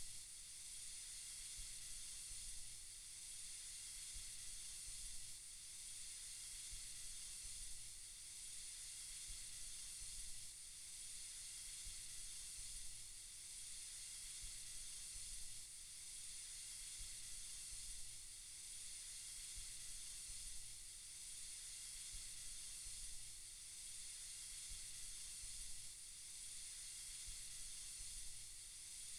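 Soft, steady white-noise hiss, mostly high-pitched, gently swelling and easing about every two and a half seconds.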